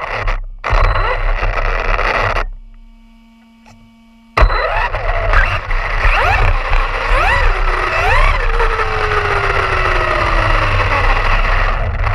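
Arrma Fazon 6S brushless RC car driving, heard from a camera mounted on it: the motor's whine rises and falls sharply in pitch with each burst of throttle, over constant tyre and wind noise. About two seconds in the sound drops to a faint steady hum for about two seconds, then cuts back in suddenly.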